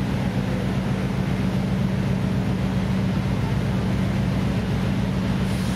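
Steady low drone of ship machinery: engines and generators running, with a constant low hum and no change in pitch.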